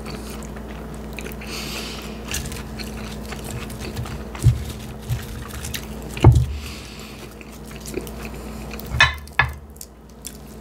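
Close-miked chewing and wet mouth sounds of someone eating a cheeseburger and fries, with a few short, loud low thumps about 4.5, 6 and 9 seconds in.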